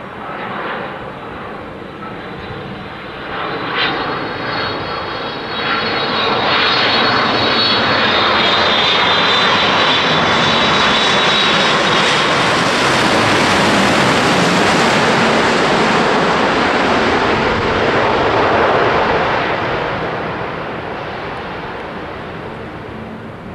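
Boeing 787 Dreamliner's twin turbofan engines in a display pass: a roar that builds over the first few seconds with a high whine on top, holds loud, then fades away over the last few seconds.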